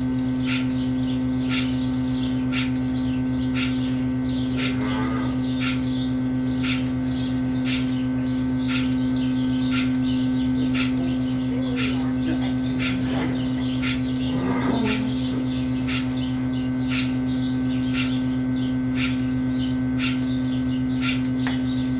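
A steady machine hum with a sharp click about once a second, and a couple of brief rising calls partway through.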